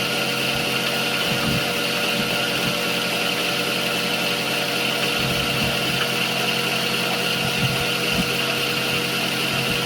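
Milling machine running steadily with a constant whine from its spindle and motor turning an end mill.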